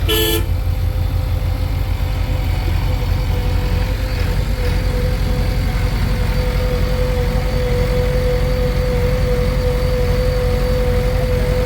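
Heavy diesel engine running steadily close by, a low rapid throb with a steady hum held over it. A short pitched sound is heard right at the start.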